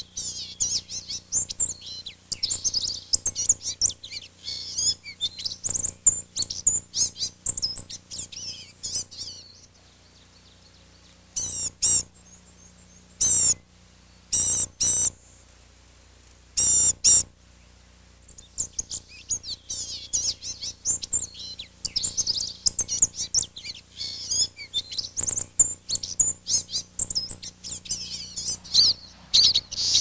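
Pine siskins twittering as a flock, a dense chatter of high calls. About a third of the way in the chatter stops for several seconds, broken only by four or five separate louder short calls, and then the twittering resumes.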